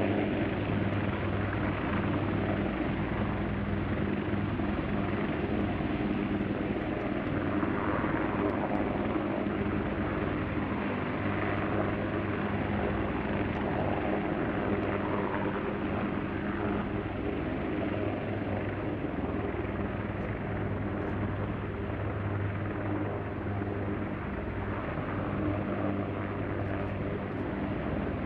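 UH-1Y Venom utility helicopter running low over the ground, its four-bladed rotor and twin turboshaft engines giving a steady drone. The noise holds a constant low hum and stays at an even level throughout.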